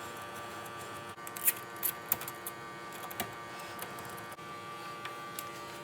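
Scattered sharp metallic clicks and scrapes of a screwdriver driving in a deadbolt's two mounting bolts, over a steady background hum.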